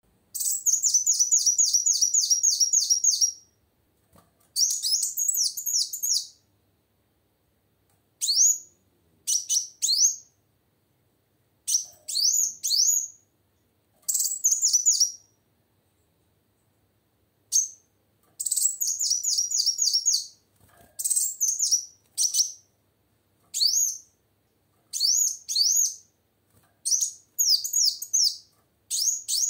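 Female kolibri wulung, a sunbird, singing in bouts of rapid, high-pitched chirping notes, each bout lasting one to three seconds with short pauses between.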